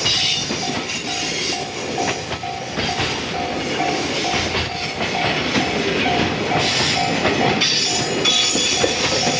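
Container freight wagons rolling past, wheels clattering over the rail joints with a hissing rail noise, until the last wagon goes by near the end. A railway level crossing bell rings steadily through it, about two to three dings a second.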